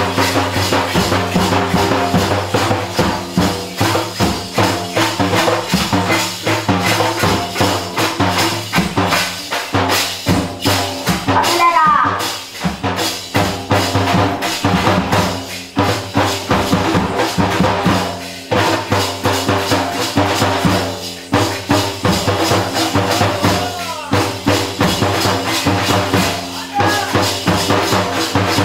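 Live folk drumming: a large frame drum struck with a stick and tall barrel drums beaten hand-played in a fast, driving rhythm over a steady low drone. A voice rises and falls briefly about twelve seconds in and again near twenty-four seconds.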